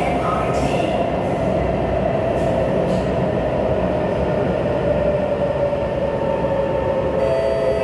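Kawasaki C151 MRT train running in a tunnel, heard from inside the car: a steady rumble of wheels on rail with a whine that slowly falls in pitch, and several higher tones joining in near the end.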